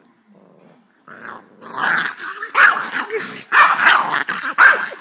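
Boxer puppy growling and barking in repeated rough bursts, starting about a second in and getting louder: a puppy in the middle of a frenzied fit.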